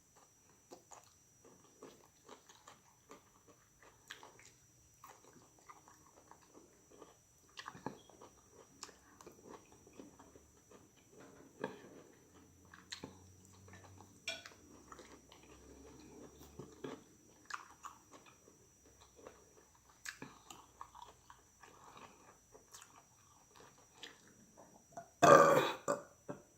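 Close-miked chewing and soft mouth sounds with scattered small clicks, then one loud burp about 25 seconds in.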